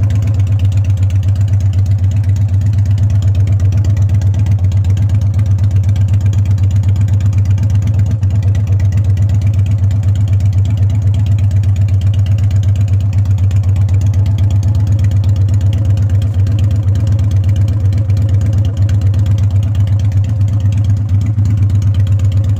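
Kawasaki Vulcan 800 Drifter's V-twin engine idling steadily, a loud, even low pulsing hum.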